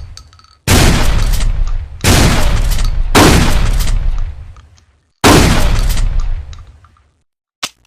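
Trench shotgun firing four shots a second or two apart, each blast fading out in a long echoing tail. A short sharp click near the end.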